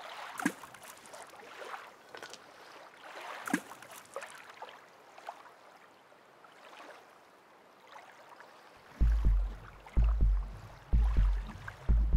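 Film soundtrack sound design: a quiet, hissy background with a few sharp clicks, then, about nine seconds in, a deep bass beat that repeats about once a second.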